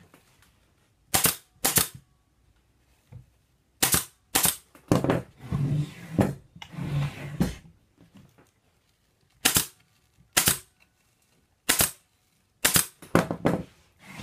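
Pneumatic upholstery staple gun firing staples into a wooden chair frame: about a dozen sharp shots at uneven intervals, several in quick succession near the end, with handling noise from the padding in between.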